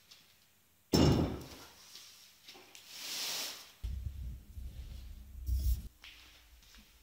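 A loud knock about a second in, then a short scraping hiss, then a couple of seconds of low rumbling handling noise with bumps as the camera is picked up and carried.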